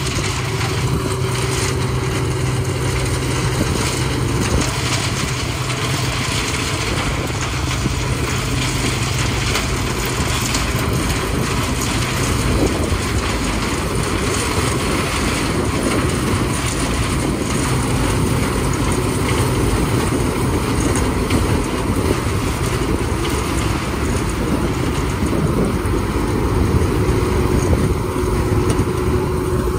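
CLAAS Mega 204 combine harvester with a corn header working through a field of dry flint corn: its diesel engine and threshing machinery run at a steady, continuous drone.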